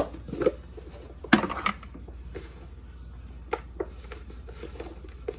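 A spice container being handled: a sharp click, then two short shaking or rustling bursts, the louder one about a second and a half in, and a few light clicks near the end.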